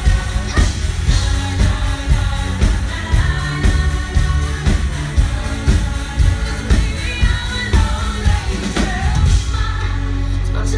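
Live pop-rock band playing with a woman singing lead: drums keep a steady beat under guitar and keyboards. About a second before the end, the beat drops out and a held chord rings on.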